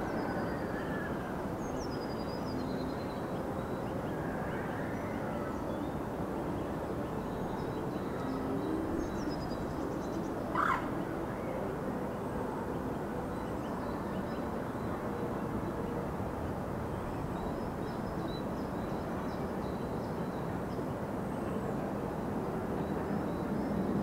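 Lakeside park ambience: a steady low rumble with small birds chirping now and then, and one short sharp sound about ten seconds in.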